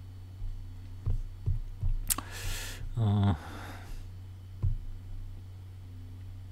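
A few computer mouse clicks while a Java program is launched from a right-click menu. A short breath about two seconds in and a brief wordless voice sound near three seconds, over a steady low electrical hum.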